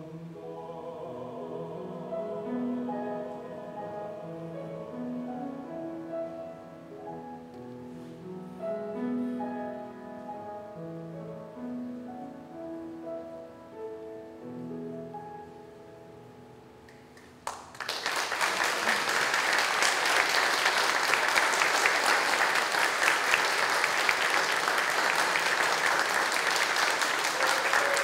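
Grand piano plays the soft closing passage of a Korean art song, its notes gradually growing quieter. About two-thirds of the way through, the audience breaks into loud, sustained applause.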